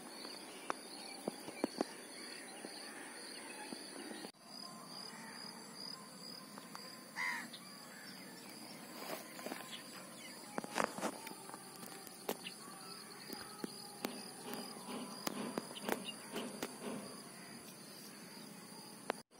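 Quiet lakeside ambience: insects chirring steadily at a high pitch, one short bird call about seven seconds in, and scattered faint clicks and taps from handling fishing line and hook.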